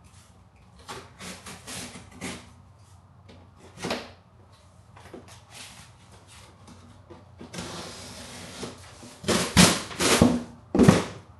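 Cardboard packaging being handled and opened: scattered rustles and knocks, a rasp lasting about a second a little past halfway, then several loud thumps near the end.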